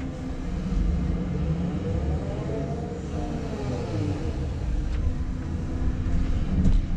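Cat 330 excavator's diesel engine and hydraulics running under load, heard from inside the cab as the arm swings back and the bucket digs into the dirt. A whine rises and falls in pitch about halfway through, and a few clicks come near the end.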